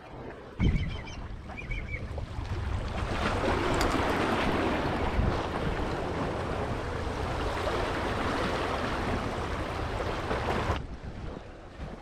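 Steady rushing of wind and surf at the shore, with a thump about half a second in and a few short high chirps just after. The rushing stops abruptly near the end.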